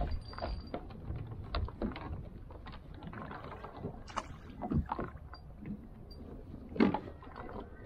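Small waves slapping against a fishing kayak's hull, with wind on the microphone and scattered knocks and clicks; one sharper knock near the end.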